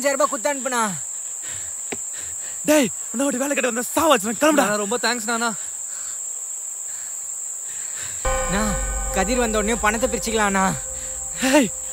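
Crickets chirping in a steady high trill behind men's raised voices arguing. A low drone comes in about eight seconds in.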